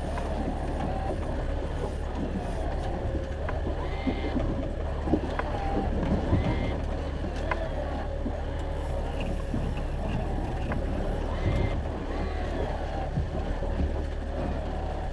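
Fishing boat's engine running steadily at trolling speed, a continuous low drone, with scattered faint clicks and a few brief high tones over it.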